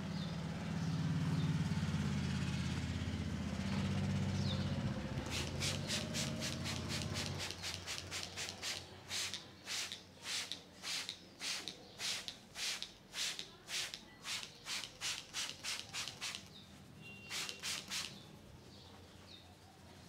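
Hands rubbing rhythmically over the hair and scalp in a head massage, about two short hissing strokes a second, starting about five seconds in and stopping near the end. A low hum is loudest at first and fades out about seven seconds in.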